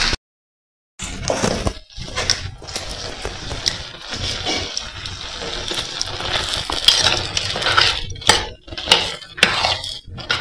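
After about a second of silence, a spoon stirs tender nopales in a clay pot over a wood fire, scraping and clinking against the pot's sides. A steady hiss runs underneath.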